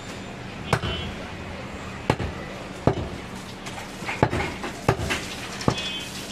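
A large butcher's knife chopping goat meat on a wooden log chopping block: six sharp chops at uneven intervals.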